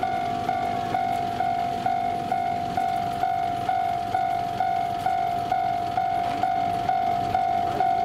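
Level-crossing warning bell ringing at an even pace, about two strokes a second, each a clear ringing tone: the crossing's alarm, sounding as a train approaches.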